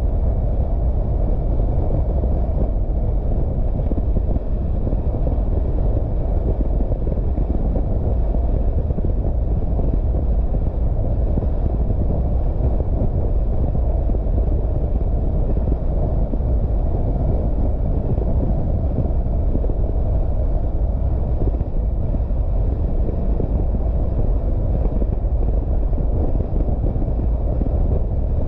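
Car driving at a steady speed: a constant low rumble of road, tyre and engine noise, with some wind on the microphone.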